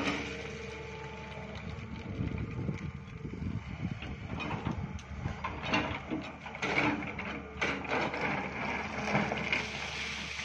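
SANY long-reach crawler excavator's diesel engine running steadily, with irregular scraping, clattering and knocking from about two seconds in as the bucket works into stony soil.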